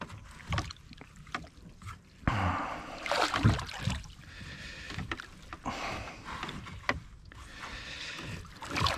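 Water splashing and sloshing around a small rowing boat, with a few sharp knocks, as a netted pike is handled in the landing net at the boat's side.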